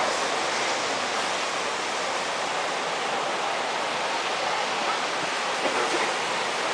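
Steady roar of surf breaking on a sandy beach, with faint voices of a beach crowd now and then.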